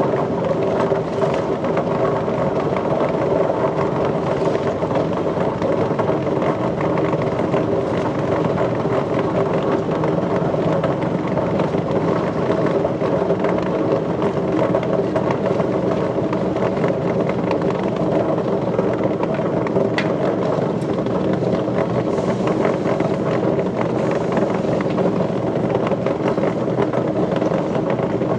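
Steady mechanical drone of machinery running at an even pitch, without pauses or changes.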